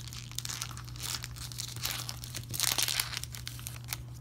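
Foil wrapper of a Magic: The Gathering play booster pack being torn open by hand, crinkling throughout and loudest about two and a half to three seconds in.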